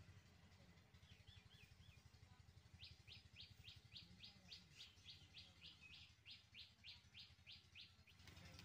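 Near silence with a faint bird calling: three short chirps, then a quick run of repeated high notes, about three or four a second, lasting some five seconds.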